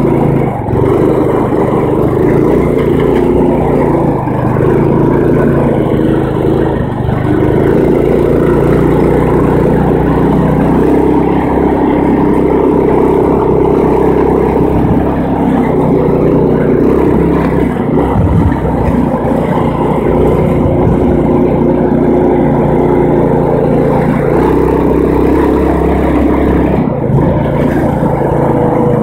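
Riding lawn mower's small engine running steadily under way, its pitch shifting a little now and then.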